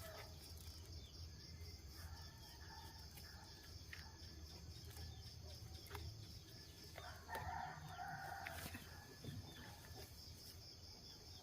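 Rooster crowing faintly, with the clearest crow about seven seconds in, over a quiet steady background hum.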